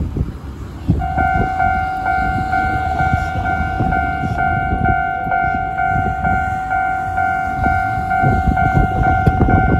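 Japanese railway level-crossing alarm starts ringing about a second in, an even, rapidly repeating two-tone ding, signalling that a train is approaching the crossing. Low street-traffic rumble runs underneath.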